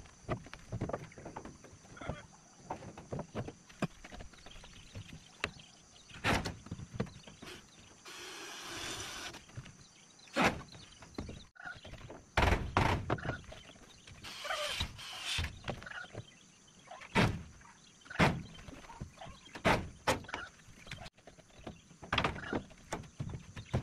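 Timber planks being handled and fixed to a wall frame on a plank floor: irregular wooden knocks and thuds, some sharp and loud. About eight seconds in there is a short noisy stretch of about a second and a half.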